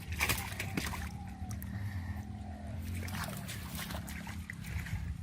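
Muddy shallow water splashing and sloshing in a run of short irregular splashes, over a steady low hum.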